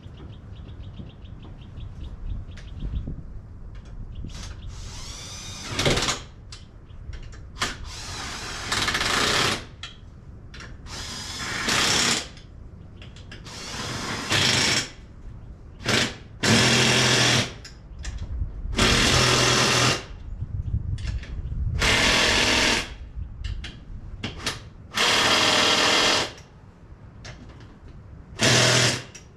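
Power tool running in short bursts of about a second, nine or so times with pauses between, some bursts spinning up with a rising pitch: fastening a zero-turn mower's wheel back on.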